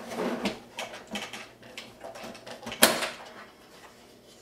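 Plastic clicks, creaks and rubbing as the clear lens of a 2003 Chevrolet Suburban instrument cluster is pried free of its pinned clips with a screwdriver and lifted off, with one sharp snap about three seconds in, the loudest sound.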